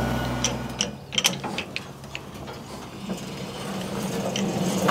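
An engine running steadily cuts off about a second in. It is followed by a quick run of sharp mechanical clicks and knocks, with a few more scattered later.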